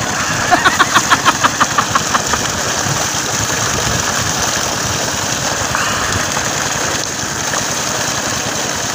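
Water gushing from the outlet pipe of an engine-driven irrigation pump, over the steady running of the pump's engine. From about half a second to two and a half seconds in, a quick run of about eight short pulsed sounds stands out.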